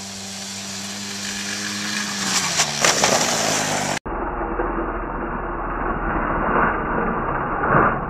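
Small mini-quad ATV engine running as the quad approaches, growing louder, its pitch dropping about two and a half seconds in. After an abrupt cut, the engine is close and louder, surging as it is revved twice near the end.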